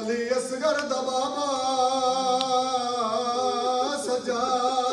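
A man's voice singing a drawn-out mourning lament (bain) of a Shia Muharram majlis, holding long, wavering notes that break into shorter ones near the end.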